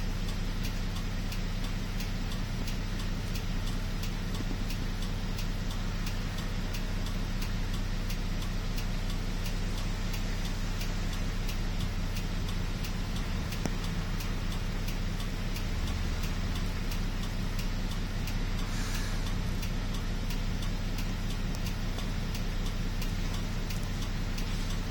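City bus engine idling in slow traffic, heard from inside the cabin as a steady low hum, with a faint regular ticking over it.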